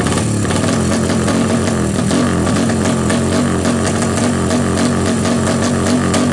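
Honda GL Pro single-cylinder four-stroke drag-bike engine, bored up to 225cc, running stationary through an open racing exhaust, its note wavering up and down about three times a second.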